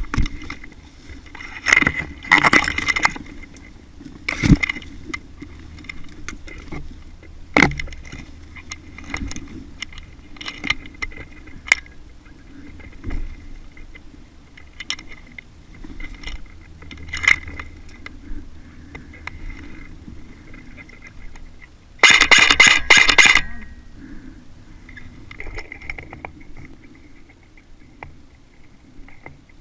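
Scattered clicks and knocks, then about three quarters of the way in a rapid burst of evenly spaced shots lasting about a second and a half, typical of an airsoft electric gun firing on full auto.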